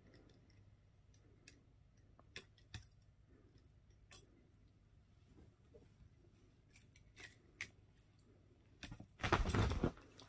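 A cat toy jingling and tinkling lightly in short, scattered bursts as a cat bats and mouths it, with a louder rustle about nine seconds in.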